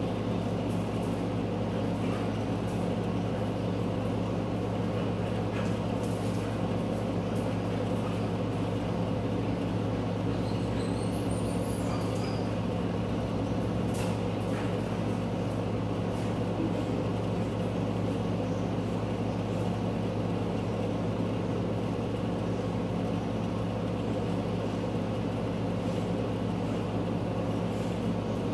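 Steady mechanical hum with a low drone that holds level throughout, with a few faint taps and a brief high chirp about halfway through.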